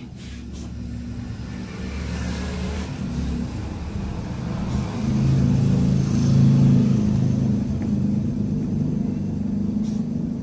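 A steady, low engine rumble that grows louder about halfway through.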